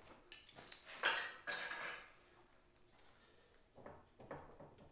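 Mini bike's metal drive chain clinking and rattling as it is worked off the rear sprocket by hand. There are a few sharp metallic clinks in the first two seconds, then softer knocks near the end.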